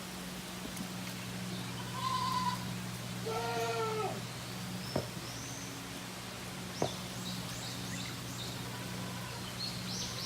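A Tokara goat kid bleating twice, a short high call about two seconds in and a longer wavering one a second later. High chirps, two sharp clicks and a steady low hum sit underneath.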